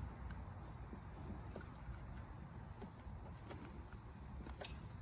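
Steady high-pitched chirring hiss in the background, with a few faint clicks and taps from hands working a plastic wiring connector.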